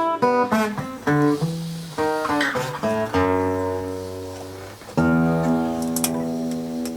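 Blues played on acoustic guitar: quick picked notes, then a strummed chord about three seconds in and another about five seconds in, each left to ring out and fade.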